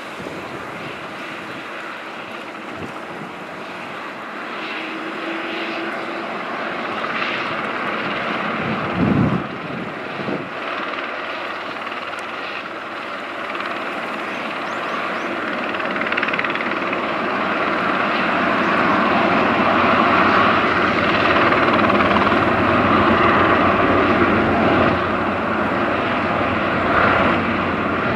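Airbus Helicopters EC130T2 running on the ground, with the Arriel 2D turboshaft and the main and Fenestron tail rotors growing steadily louder. There is a brief low thump about nine seconds in.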